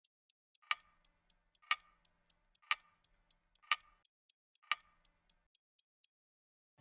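A clock ticking sound effect: quick sharp ticks about four a second, with a louder, lower tock once a second, stopping about six seconds in.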